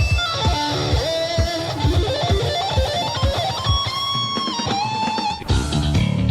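Background music: an electric guitar plays a melodic lead with slides and bends over a steady drum beat. About five and a half seconds in it moves into a fuller, bass-heavy section.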